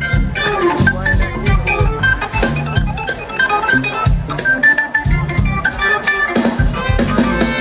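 Live blues-rock band playing: an organ runs quick strings of short notes over a drum kit.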